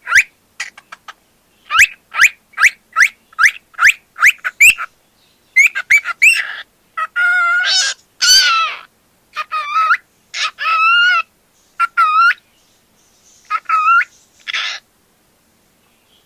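Pet cockatiel calling: a quick run of short rising chirps, then longer warbling whistles that waver up and down in pitch, with short pauses between them.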